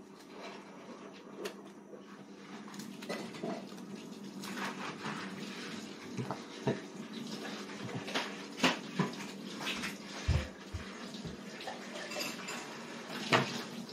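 Light clinks and taps of training chopsticks and fingers on a plate during a toddler's meal, scattered irregularly, with a few soft low thumps about ten seconds in, over a steady low hum.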